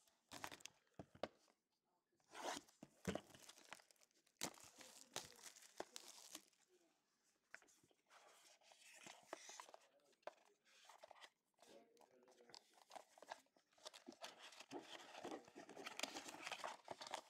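Cellophane shrink-wrap on a cardboard trading-card box being cut, torn off and crinkled in the hands, in short, irregular crackles. Cardboard rustles as the box is opened, with a denser run of crinkling near the end.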